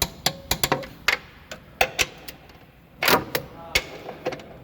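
Irregular clinks and knocks of hand tools and metal parts during under-chassis repair work on a car's front suspension. The loudest knock comes about three seconds in and rings briefly.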